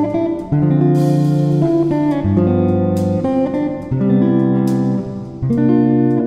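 Background music: a guitar piece whose chords change every second or two, each change starting with a fresh strum.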